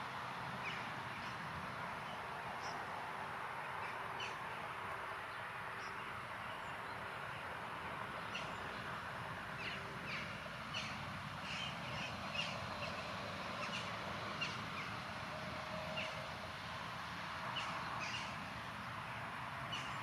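Birds calling outdoors: many short, high calls scattered over a steady hiss, coming more often in the second half.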